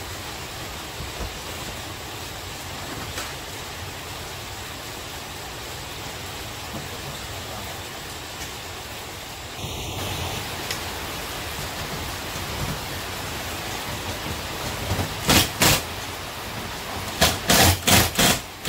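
Steady hiss, then near the end a cordless drill driving screws into a TV wall-mount bracket in short, loud trigger pulses: two at first, then a quick run of five or six.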